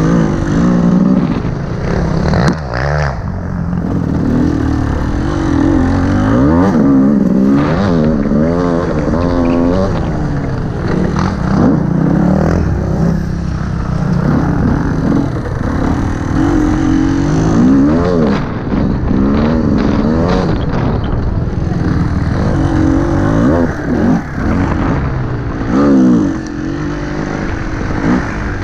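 Enduro dirt bike engine revving as it is ridden over a rough trail, its pitch rising and falling again and again as the throttle is opened and closed. Scattered knocks and rattles from the bike over the bumps.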